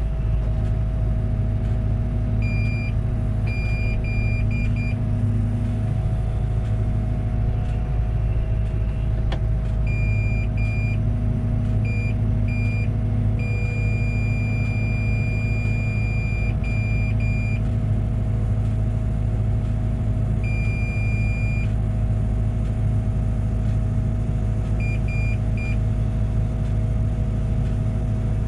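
Liebherr 914 Compact excavator's diesel engine running steadily with a low hum. A high electronic beep comes and goes over it, as short beeps in small groups and a few longer tones of a second or more.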